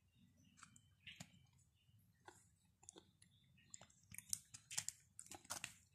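Faint close-up chewing and soft mouth clicks, then from about four seconds in a run of sharper crackling clicks as fingers tear and handle a paratha flatbread.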